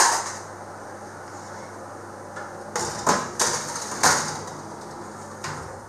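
Built-in oven door clunking open, then a metal baking dish slid onto the oven's wire rack with a few knocks and scraping clatters about three seconds in, over a steady low hum.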